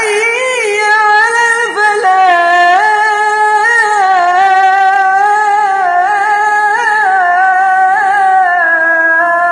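A young man's voice chanting the azaan, the Islamic call to prayer: one long, highly ornamented phrase with many quick turns in pitch, settling onto a long held note near the end.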